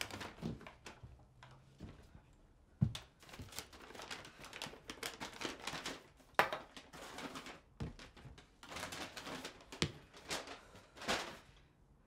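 Household cleaning products (an aerosol disinfectant can, a plastic spray bottle and a canister of wipes) set down one after another on a granite countertop: a series of sharp knocks on the stone, the clearest about three and six and a half seconds in, with handling and rustling between them.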